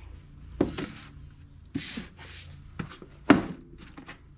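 Paperback manga volumes handled and set onto an IKEA Billy bookshelf: a few knocks and a sliding rub, the sharpest knock a little past three seconds in.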